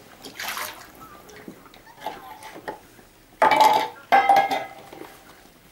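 Stainless steel feeding bowls clanking twice in quick succession about three and a half seconds in, each clank followed by a short metallic ring, with a softer scrape near the start.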